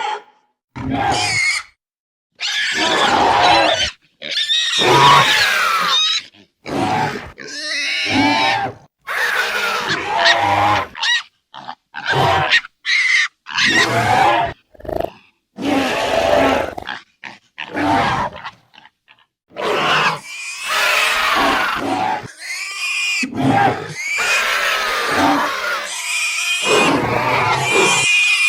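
A string of about a dozen edited creature sound effects in quick succession, with short breaks between them: pig-like squeals and grunts mixed with monster-style screeches and growls, their pitch sliding up and down.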